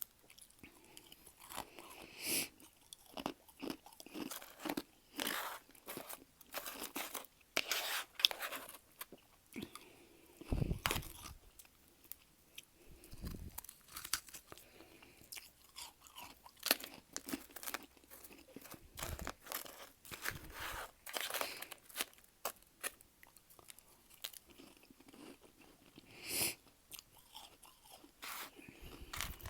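Close-miked chewing and crunching of powdery freezer frost, a run of irregular soft crunches and bites with a few duller low thuds around the middle.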